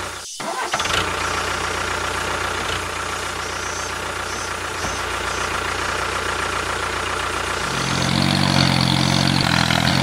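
Tractor engine running steadily, with a brief dropout a moment in. About eight seconds in, a louder, deeper engine note takes over.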